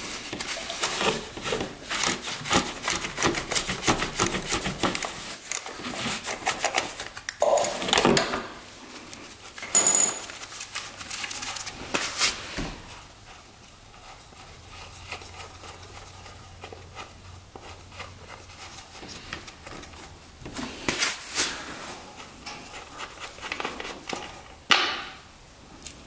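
Ratchet wrench clicking in rapid runs as an 8mm valve-cover bolt is worked loose on an ATV engine, with metal clanks of the tool against the engine parts.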